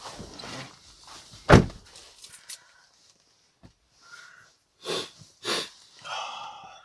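Handling and rustling noises with one heavy thump about one and a half seconds in, then two short loud puffs of noise around five seconds in.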